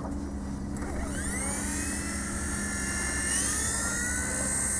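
WLToys V922 electric RC helicopter spooling up on the ground: a motor and rotor whine that starts rising about a second in and climbs in pitch again past the three-second mark.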